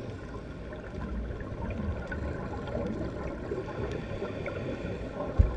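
Underwater reef ambience picked up by a diving camera: a steady low rushing and rumbling with faint scattered clicks, and one sharp low thump near the end.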